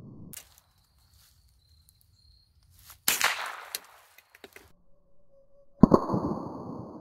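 A Walther Hammerli Tac R1 .22 LR semi-auto rifle firing: a sharp crack about three seconds in and another near six seconds. The second shot is followed by the high ringing of a struck steel target plate.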